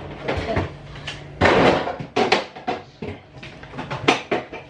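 Fridge door held open while things are moved about inside it: a rustle, then a few sharp knocks and clicks of items being handled.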